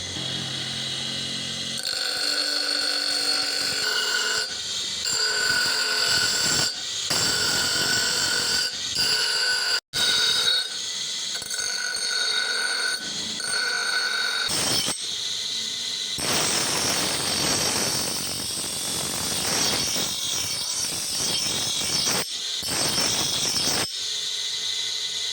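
Electric power tools working steel in a run of short clips, each a steady whine with hiss that cuts off abruptly at the joins.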